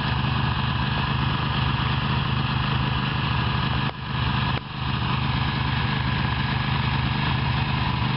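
Ducati Monster's V-twin engine idling steadily, with two brief drops in loudness about four seconds in.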